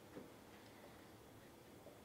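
Near silence: room tone, with one faint light tap just after the start.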